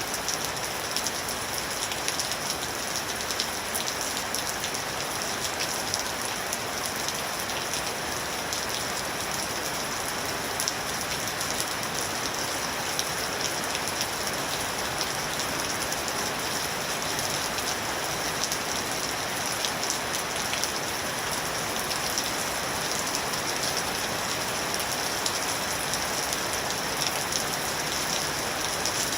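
Steady rain falling on a surface, a continuous hiss with many fine, crisp drop ticks throughout.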